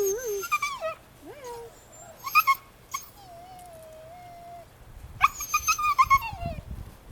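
Husky puppy howling: a string of high, wavering calls and short yips, with one longer steady howl about halfway through.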